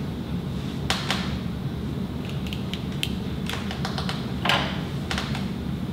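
Irregular clicks of a DSLR camera's buttons and control dial being worked while setting the exposure, some in quick pairs, over a steady low hum.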